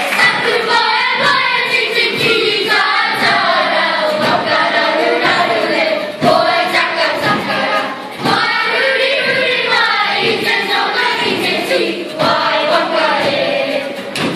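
Kapa haka group of children singing a Māori song together in unison, girls' and boys' voices, with a few sharp knocks through the singing.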